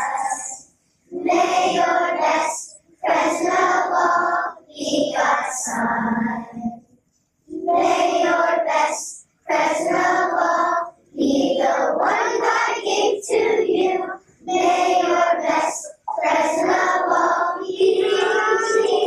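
A class of young children singing together, in short phrases of a second or two with brief breaths between.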